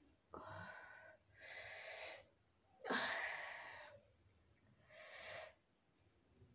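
Heavy, hissing breaths through the mouth, four in all, the loudest and sharpest about three seconds in: a person gasping at the burn of hot chillies.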